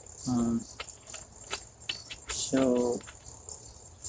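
Scattered light clicks and taps of hard plastic being handled, as the chainsaw's oil-tank cap and oil bottle are put away, between a short hummed sound and a spoken "so".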